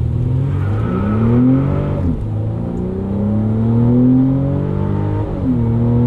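Mercedes-Benz E 300 S213's 2.0-litre turbocharged four-cylinder under hard acceleration, heard from inside the cabin. The engine note climbs steadily, drops at an automatic upshift about two seconds in, climbs again, and drops at a second upshift near the end.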